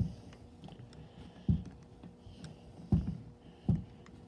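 A few dull, irregular knocks as tape-wrapped slip joint pliers work the reverse-threaded stabilizer bar loose on a Taylor 161 soft-serve machine's faceplate.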